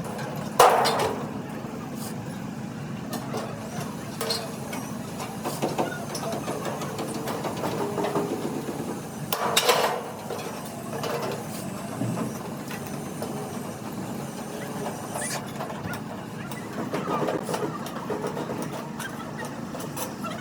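A steady engine hum with scattered knocks and clanks, and two louder bursts of noise, one about a second in and one about halfway through.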